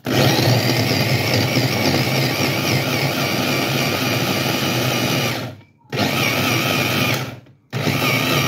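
Electric mini chopper running as it purées dates and raisins with honey and water: one long run of about five seconds, then two shorter presses, each cutting off sharply, with a wavering whine over the motor noise.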